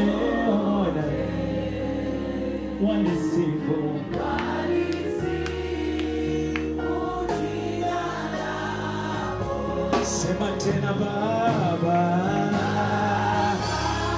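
Live Swahili gospel worship song: a choir and congregation sing together over held instrumental chords and a steady bass line.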